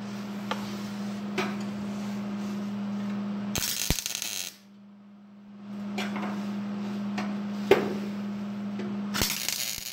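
Two short bursts of arc welding as tacks are laid on thin sheet steel, each about a second of crackling hiss, over a steady electrical hum, with a few sharp metallic clicks between them, the loudest just before the second burst.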